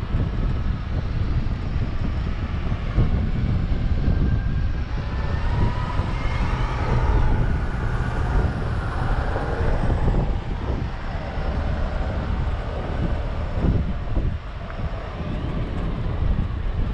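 Vehicle engine running steadily with a heavy low rumble; about halfway through, a higher whine rises and falls in pitch for a few seconds.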